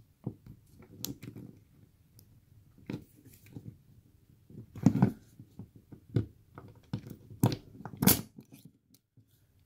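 Scattered metallic clicks, scrapes and knocks of a hook pick being forced down into the gap beside a padlock's shackle to bypass the lock, with a few louder clacks about five, seven and a half and eight seconds in.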